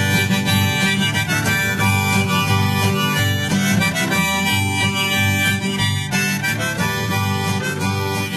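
Background music: an instrumental stretch of an acoustic folk song, with no singing.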